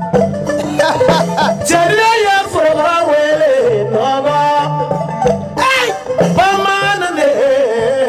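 A singer's voice on a microphone, held notes sliding and bending up and down, over instrumental accompaniment with a steady low bass line moving in steps.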